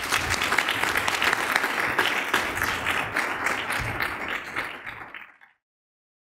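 Audience applauding: dense clapping from many hands that fades out about five seconds in.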